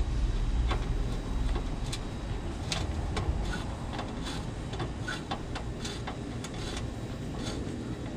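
Irregular light clicks and ticks of a Phillips screwdriver and screw working against the grill's sheet-metal side panel, over a low rumble that is strongest in the first second or so.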